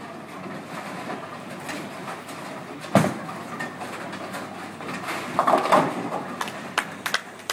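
Tenpin bowling: a ball lands on the wooden lane with a sharp thud about three seconds in and rolls, then strikes the pins with a clatter near the end, followed by quick clicks of falling pins. Throughout there is the steady rolling noise of balls on the other lanes of the hall.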